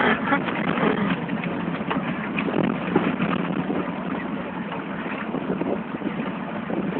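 A Suzuki driving over a rough, rutted sandy dirt track, heard from inside the cab: steady engine and road noise with frequent knocks and rattles as the body jolts over the ruts.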